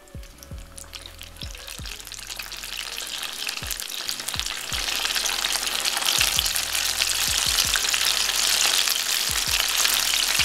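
Karaage chicken pieces deep-frying in oil at about 400°F for the second fry: a dense crackling sizzle that builds over the first few seconds and then holds steady. A faint low beat runs underneath.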